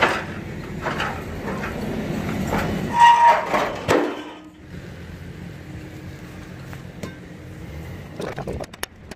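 Heavy steel truck chassis rails knocking and scraping against each other as they are shifted by hand, with a loud ringing metal clang about three seconds in.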